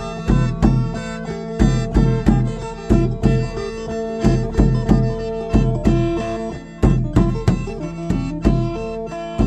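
Isan folk music: a phin (plucked lute) playing quick melodic notes over a steady held drone, as from a khaen (bamboo mouth organ), with a drum beating a regular pulse.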